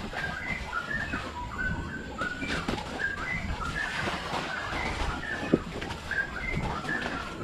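Birds calling over and over with short whistled notes, several a second, over the low rumble of a mountain bike riding the trail. A single sharp knock about five and a half seconds in.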